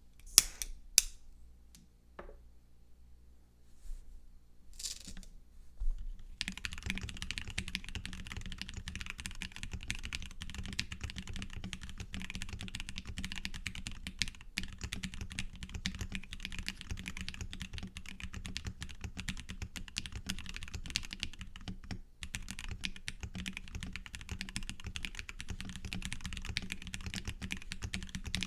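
Typing on a KBD67 Lite mechanical keyboard with a silicone-filled case, lubed and filmed JWK Black linear switches and Osume Sakura keycaps. A few separate clicks come first, then a steady stream of fast keystrokes from about six seconds in, with a brief break about three-quarters of the way through.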